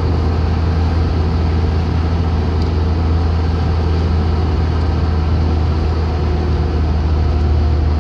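Car engine and tyre noise heard from inside the cabin while driving at a steady speed: a constant low drone that neither rises nor falls.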